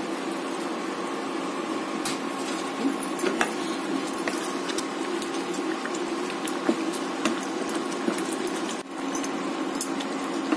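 Hot water poured from a cup into a pan of simmering chicken curry, then the curry bubbling as a wooden spatula stirs it, with light scattered knocks against the pan over a steady hum.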